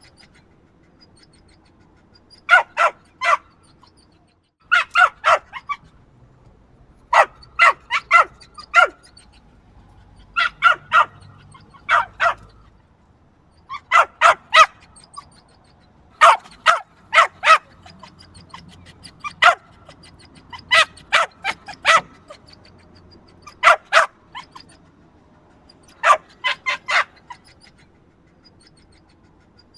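Small yappy dog barking: short, sharp, high-pitched yaps in quick bursts of two to five, with brief pauses between bursts.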